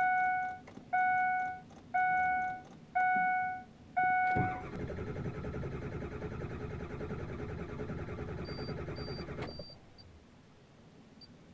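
Dashboard warning chime sounding five times, about once a second, then a relay chattering rapidly for about five seconds before cutting off suddenly. This is the weird relay clicking of a diesel that will not start while its wait-to-start light stays on.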